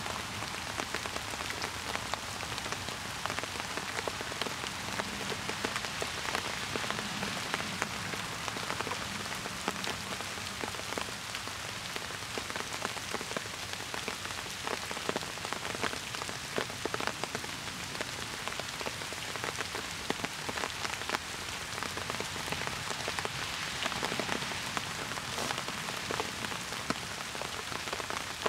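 Steady rain falling: a dense, even hiss dotted with countless individual drop ticks.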